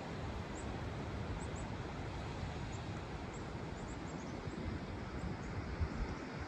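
Strong wind blowing across open lake water, a steady rush with wind buffeting the microphone; a gust thumps the microphone near the end.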